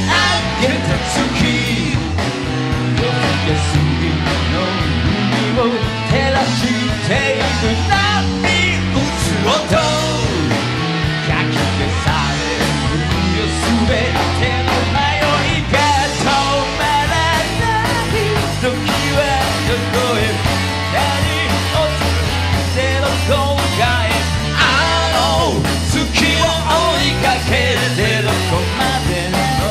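Rock band playing live and loud, with electric guitar, electric bass and a drum kit. A male vocalist sings over the band.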